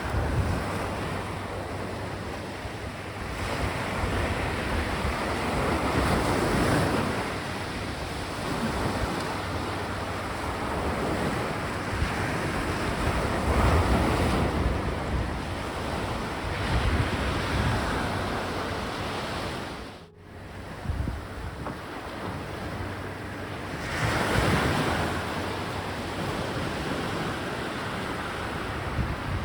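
Sea surf washing onto a beach, swelling and ebbing as each wave comes in every several seconds, with wind buffeting the microphone. The sound drops out for a moment about two-thirds of the way through.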